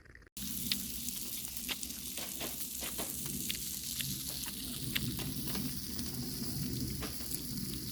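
Lamb sizzling steadily as it grills, with scattered sharp pops of spitting fat; the sizzle starts abruptly a moment in.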